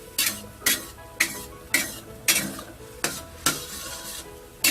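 A utensil stirring and scraping a sauce in a pan, in sharp strokes about twice a second, with a light sizzle. The sauce is being thickened with a thin cornstarch slurry.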